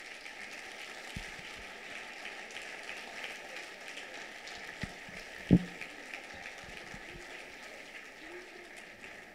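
Audience applauding steadily, a dense patter of many hands clapping, with a single thump about five and a half seconds in.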